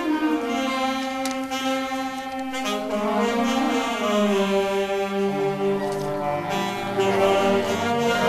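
Concert band of woodwinds such as clarinets and flutes playing slow, held chords, with deeper held notes coming in about halfway through.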